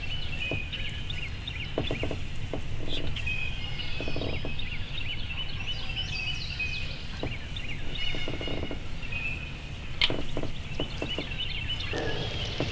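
Songbirds chirping and singing in a busy, steady chorus over a low rumble, with short soft low sounds coming and going every second or two.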